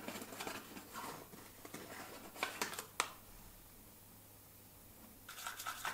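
Plastic bag of cornstarch crinkling as a spoon scoops from it, with small clicks and one sharp click about three seconds in. Near the end, a plastic spoon scrapes and stirs cornstarch into UV resin in a plastic cup.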